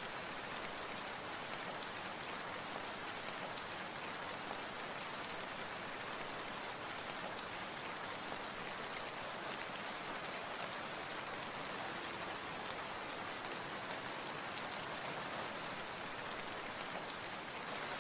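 Steady rain falling: an even, continuous hiss with no single drops or other sounds standing out.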